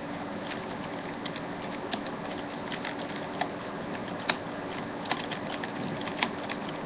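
Small, irregular clicks and ticks of a screwdriver backing screws out of a ThinkPad T42 laptop's bottom case, over a steady background hiss.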